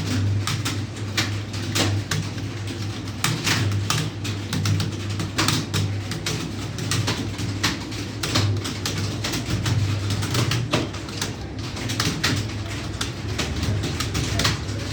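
Several computer keyboards clattering as a group of typists type at speed: a dense, irregular stream of key clicks over a steady low hum.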